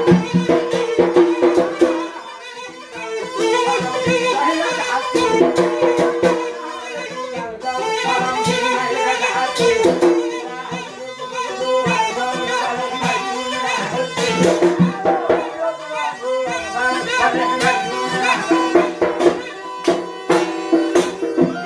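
Traditional Yemeni dance music played on a mizmar pipe with drum beats, the pipe holding long reedy notes over the drumming.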